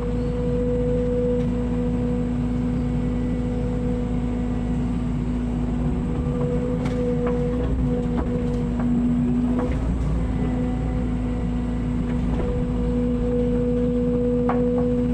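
An engine running steadily at a constant speed, with a few light knocks and scrapes in the middle and near the end.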